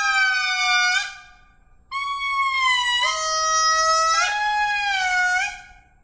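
Ring-tailed lemur wailing calls: two long pitched calls, the first about a second long and the second nearly four seconds, each jumping abruptly up or down in pitch several times.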